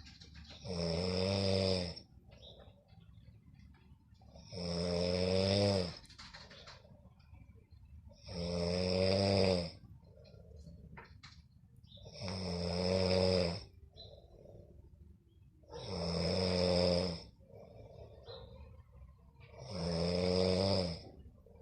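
Snoring: six long, pitched snores, one about every four seconds, each lasting about a second and a half, much quieter between them.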